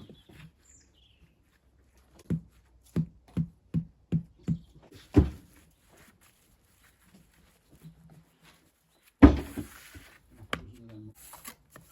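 Stone being knocked with a mason's hand tool: a run of about eight sharp knocks at two or three a second, the last one hardest, then one heavier crash about nine seconds in.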